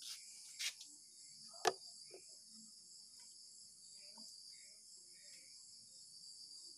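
Faint, steady high chirring of insects such as crickets, with one sharp click about a second and a half in.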